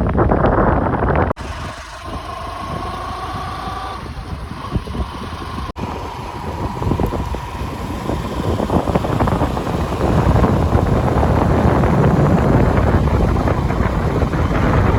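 Vehicle travelling on a road: steady engine and road noise with wind buffeting the microphone, broken by two brief dropouts in the first six seconds.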